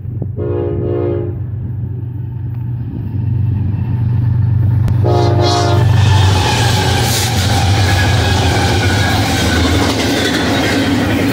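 Double-stack container train behind GE ES44C4 diesel locomotives: a steady diesel engine rumble with two short locomotive horn blasts, the second as the lead units pass about five seconds in. After that comes the rolling rumble and rattle of the container cars' wheels on the rails.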